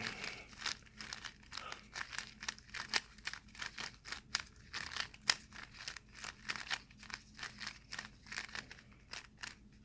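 GAN 356 Air plastic speed cube being turned by hand in quick runs of moves: a rapid, irregular string of small plastic clicks and scrapes, several each second.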